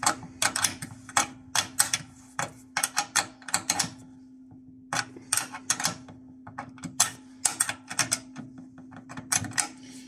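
A small metal spanner working a 10 mm nut onto a bolt, making quick runs of sharp metallic clicks that break off for about a second near the middle and then carry on. A faint steady hum sits underneath.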